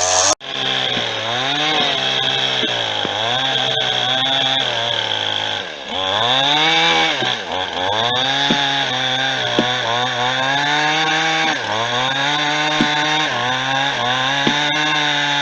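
Chainsaw engine running at high revs, its pitch dropping and climbing back again and again, about every one and a half to two seconds.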